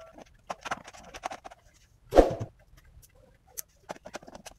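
Scattered small clicks and taps of a screwdriver and hands working on the plastic back panel of a keyboard while its screws are taken out, with one louder knock about two seconds in.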